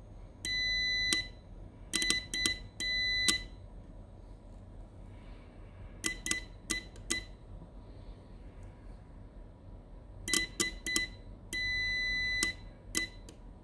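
Multimeter continuity buzzer beeping in a steady high tone as the probes touch circuit-board pads. It comes as several beeps of about half a second to a second, with short, choppy chirps between them where the probes make and break contact.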